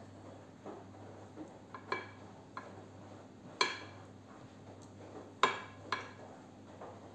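Wooden-handled pastry brush clinking against glass as it is dipped into a bowl of melted butter and worked over a glass baking dish. There are several short clinks, each ringing briefly, and the sharpest come in the second half.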